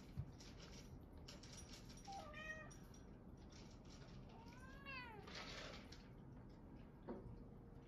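Munchkin cat meowing twice, a short call about two seconds in and a longer one that rises and falls near the middle, begging while waiting to be fed.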